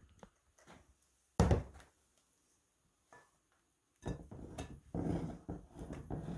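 A single sharp knock about one and a half seconds in. From about four seconds on, a spatula spreads pudding in a glass bowl with soft, irregular scraping and dabbing sounds.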